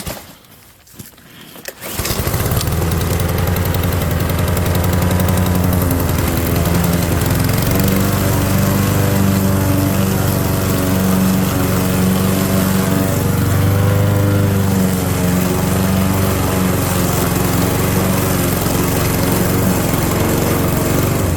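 Cub Cadet gas walk-behind lawn mower engine starting up about two seconds in. It then runs steadily under load while mowing through and picking up leaves at its lowest cutting height, and cuts off near the end.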